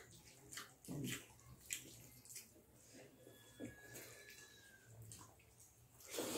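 Close-up mouth sounds of two people eating rice and curry by hand: wet chewing, lip smacks and small clicks, with fingers squishing and mixing rice on steel plates. A louder wet slurp or mouthful comes about a second in and again at the very end.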